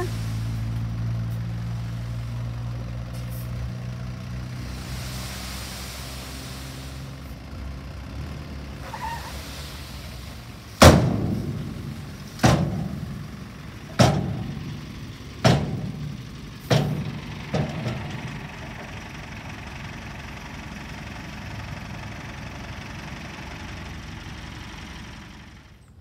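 Dump truck's diesel engine running steadily as it tips a load of sand, fading over the first few seconds. About eleven seconds in come six loud metal bangs roughly a second and a half apart, each ringing briefly, from the truck's steel tipper body and tailgate.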